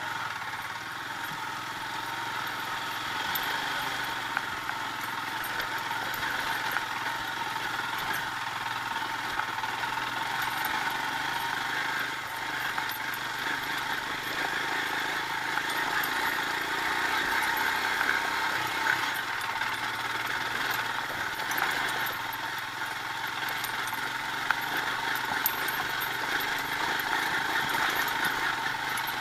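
Royal Enfield Himalayan's single-cylinder engine running steadily as the motorcycle climbs a rough dirt track, slowly getting louder, with a couple of brief knocks about three-quarters of the way through.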